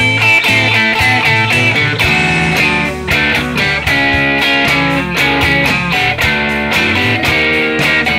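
Electric guitar, a Telecaster-style partscaster, played along with a backing track with a steady bass line and regular beat.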